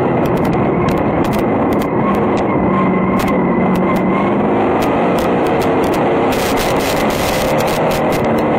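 Vintage modified sportsman dirt-track race car's engine running loud under racing load, heard from inside the cockpit, its pitch rising and falling slightly. Frequent sharp ticks of flying dirt hitting the car's body and screens cut through it.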